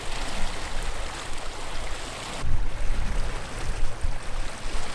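Water rushing and splashing past a sailing catamaran's hulls in its wake, with wind rumbling on the microphone. It grows louder about halfway through.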